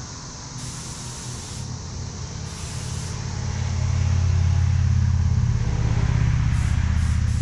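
Compressed-air spray gun hissing as it sprays Cerakote, with brighter, louder spurts of spray a second or so long, twice early on and again near the end. A low machine drone swells in about halfway through and becomes the loudest sound.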